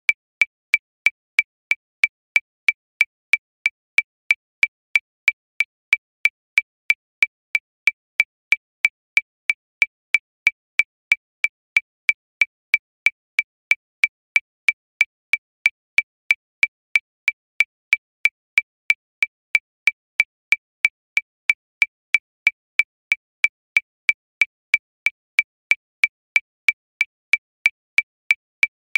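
Metronome clicking steadily at 185 beats per minute, about three short, high, even clicks a second with no accented beat.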